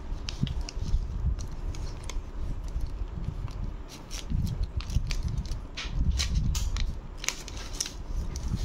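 Paper and a clear plastic sheet crinkling and crackling as a handmade card is handled and turned over, in many short, sharp clicks that come thicker after about four seconds.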